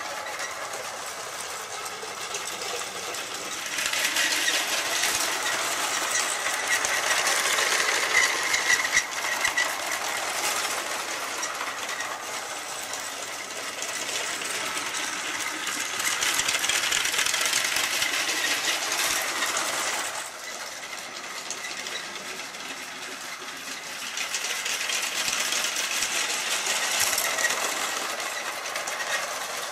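Motorised Lego train running around its plastic track, a steady whir and rattle of the small electric motor and wheels. It swells louder three times as the train comes close and fades as it moves away.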